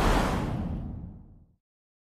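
A cinematic whoosh sound effect with a deep low end, peaking at the start and dying away to silence about a second and a half in.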